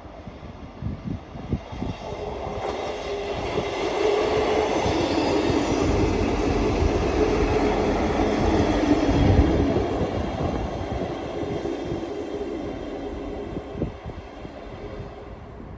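A train passing by: it builds up, is loudest in the middle with a steady hum over the running noise, then fades away.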